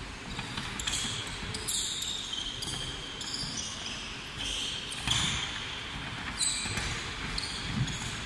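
Handball players' court shoes squeaking on a wooden sports-hall floor in short, repeated squeals as they cut and sprint, with a few thuds of the handball bouncing, all echoing in the large hall.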